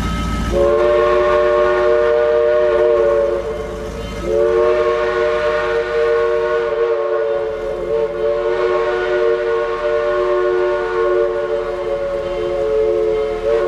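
A locomotive's three-note chime horn sounding a crossing warning: one long blast of about three seconds, a short break, then a much longer blast held almost to the end.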